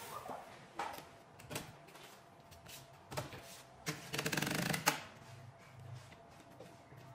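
Light clicks and knocks from handling metal drawer slides and a tape measure on a wooden cabinet top, with a rapid rattling run of clicks lasting about a second, about four seconds in.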